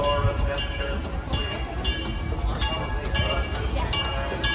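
Steam locomotive bell ringing in steady strokes, roughly one every half second or so, over a low rumble from the train rolling into the station. The bell marks the train's arrival.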